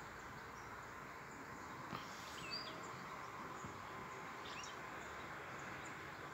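A few short bird chirps, about two and two and a half seconds in and again near the five-second mark, over a steady hiss of outdoor background noise.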